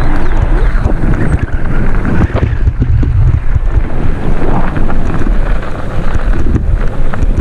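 Wind buffeting the microphone while riding a mountain bike fast down a dirt trail, with scattered knocks and rattles from the bike over rough ground.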